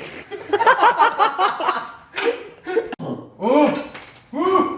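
Men laughing: a quick run of laughs, then a few chuckles near the end.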